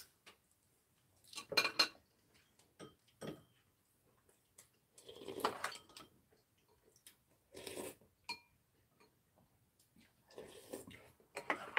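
Metal spoons and chopsticks clinking and scraping against ceramic bowls while eating, in short scattered bursts, with a brief ring from a spoon striking a bowl.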